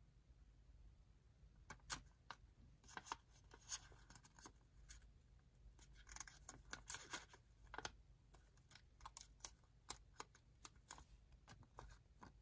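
Sheet of origami paper being handled and folded by hand: soft rustling broken by scattered sharp crinkles and ticks as the corners are folded in and creased.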